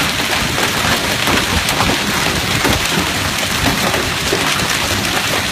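Hail and rain pelting down hard: a steady, dense clatter of many small sharp hits.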